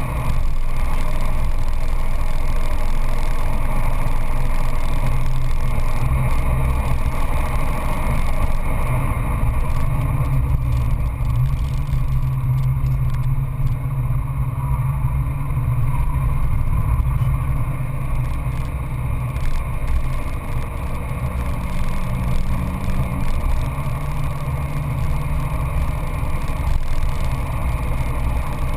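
Peugeot 206 GTI S16's four-cylinder engine running hard at speed, heard from inside the cabin together with road and wind noise. The engine note eases slightly about two-thirds of the way through, then picks up again.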